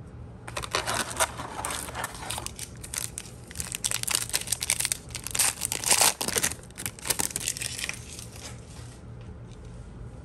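Foil trading-card pack wrapper being torn open and crinkled by hand: a dense crackling rustle lasting about seven seconds, loudest in the middle, then tailing off.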